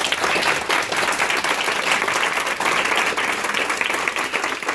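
Audience applauding: many people clapping at once in a room, a steady dense patter.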